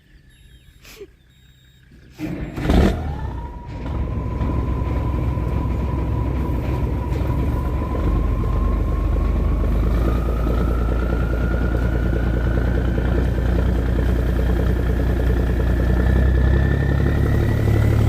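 A boat engine comes on suddenly about two seconds in, then runs steadily and loudly, its whine climbing slowly in pitch as it picks up speed.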